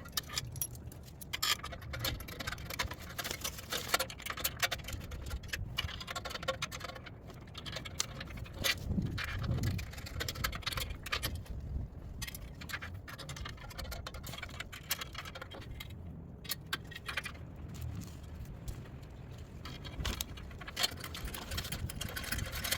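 Irregular metallic clinks, rattles and scrapes of screws and washers being worked by hand against a stainless-steel skid-type shield and mounting plate, feeling for the threads in the cross member.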